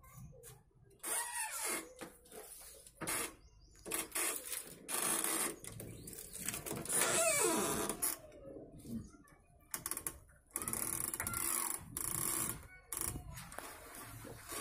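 Hand screen printing: a squeegee drawn over the screen frame and paper sheets handled, a series of irregular scraping and rubbing strokes of a second or two each.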